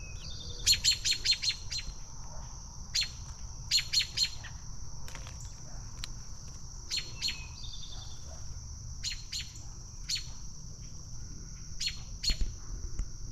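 Adult American robin giving sharp, clipped alarm calls in quick runs of several notes, repeated in clusters, the agitated call of the parent near its nest. A steady high insect drone runs underneath.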